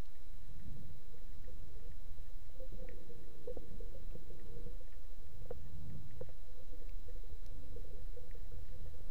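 Underwater ambience picked up by a camera in a housing on a speargun. A steady low rumble swells a couple of times, under a faint constant hum and a few scattered faint clicks.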